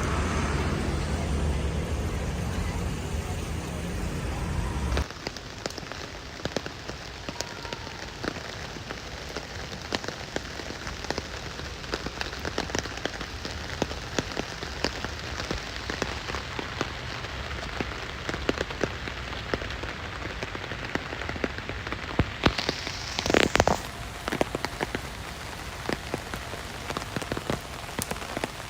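Rain falling and pattering on hard surfaces, with many separate drops ticking. A low rumble under it stops abruptly about five seconds in, and there is a brief louder rush about three-quarters of the way through.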